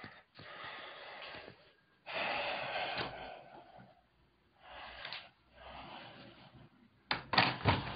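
A person breathing close to the microphone, with four long, noisy breaths. A few sharp clicks near the end.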